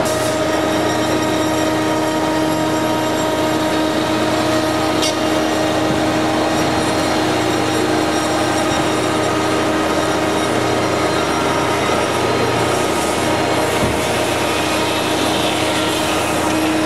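Practical CNC Dual 2 router's 10 HP spindle running steadily, its cutter milling black plastic sheet: a continuous cutting noise with a steady whine held over it.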